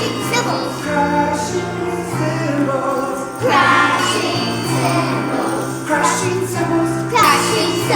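Children's choir singing a praise song over instrumental accompaniment, with a steady bass line underneath.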